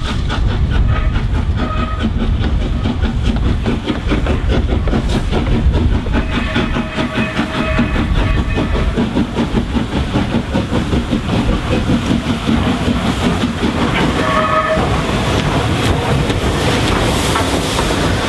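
Schools class three-cylinder 4-4-0 steam locomotive no. 925 and its coaches running tender-first and passing close by, a fast steady chatter of exhaust beats and wheels on rail joints. A few drawn-out high tones sound over it, the longest for about three seconds some six seconds in.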